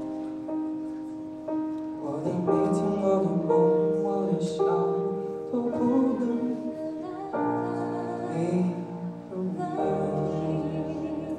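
Live song: an electric piano playing held chords, with a voice singing long, wavering notes over it.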